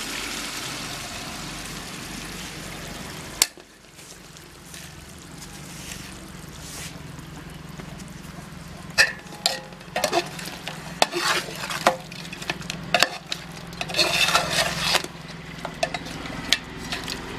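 A perforated metal ladle stirring thick turkey gravy in an aluminium pot, clinking and scraping against the pot's side in a run of sharp knocks from about halfway through. Before that, a steady hiss cuts off with a single click about three seconds in.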